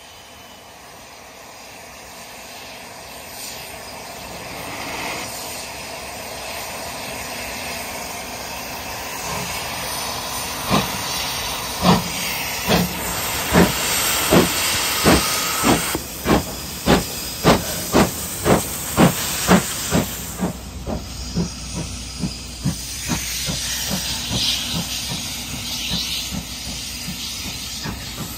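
C11 tank steam locomotive working past: a hiss of steam grows louder, then strong, regular exhaust chuffs come about one and a half a second, then give way to softer, quicker beats over a low rumble as the train rolls by.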